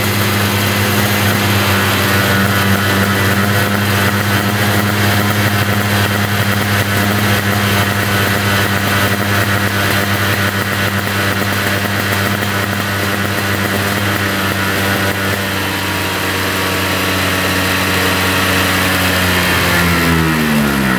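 Two-stroke SKR 125 scooter engine with a handmade TMR performance exhaust, running flat out in a dyno power run with the main jet leaned down. It holds one steady high-revving note for most of the run. Near the end the pitch falls away quickly as the run ends.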